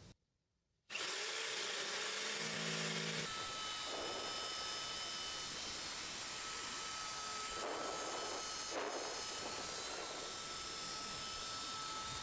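Jigsaw cutting a sheet of 8mm plywood, its motor running steadily, with the blade's rasp swelling briefly a few times as it bites into the wood.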